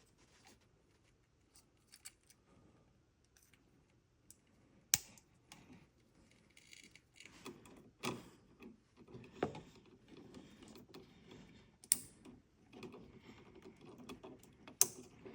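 Stiff copper house wires being handled and fitted into Wago lever connectors, with a few sharp plastic clicks as the clip levers snap shut, over rustling and small knocks.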